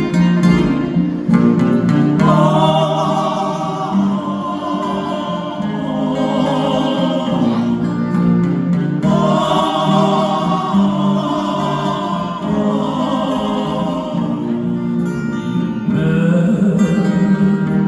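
Acoustic guitars playing a strummed intro together. A higher, wavering melody line comes in over them about two seconds in and again about nine seconds in.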